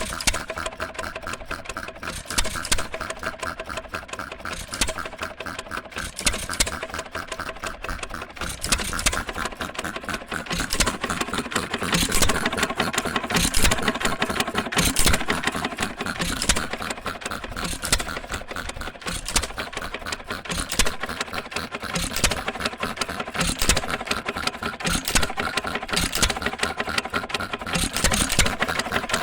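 1916 Associated 2-1/4 HP hit-and-miss engine with its air compressor running steadily: a fast, even clatter with a louder beat roughly every second or two.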